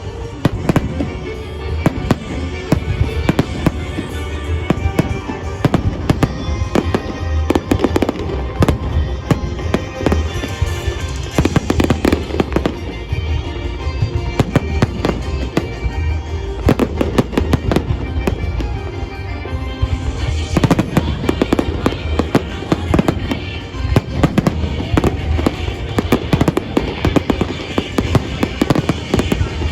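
Fireworks salute: a continuous, dense string of shell bursts and crackling bangs, irregular and close together, with music playing underneath.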